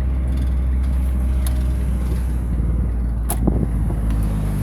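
Car engine and road noise heard from inside the vehicle as it slows to pull over, a steady low drone. A sharp click a little over three seconds in.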